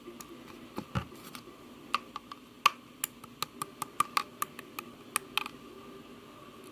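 A quick, irregular series of sharp clicks or taps, about twenty in all, some much louder than others, that stop about five and a half seconds in.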